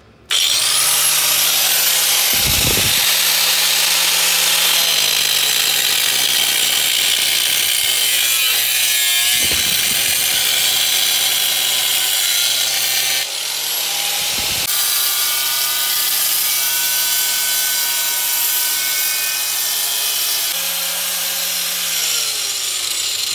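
Corded angle grinder with a cutting disc grinding a groove into a concrete floor. It starts suddenly and runs loud and steady. The motor's pitch sags under load and picks up again several times, and the loudness drops slightly about 13 seconds in.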